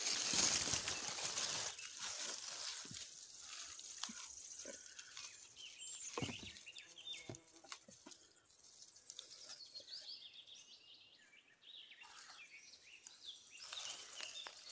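Leaves and undergrowth rustling as someone pushes through bushes on foot, loudest for the first couple of seconds, then scattered snaps and clicks of twigs and handling. Small birds chirp in the last few seconds.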